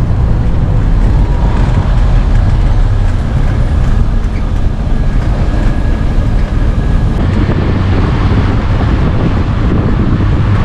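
Bus driving along a road, heard from inside the cabin: a steady, loud low rumble of engine and road noise.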